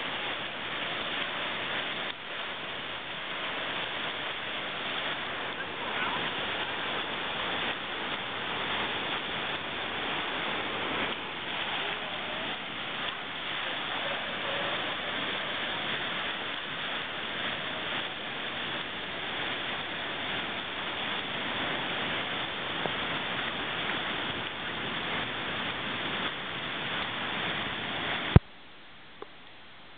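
Rushing floodwater of a river swollen by tropical-storm rain: a steady, dense rush with no break. Near the end it cuts off suddenly with a click.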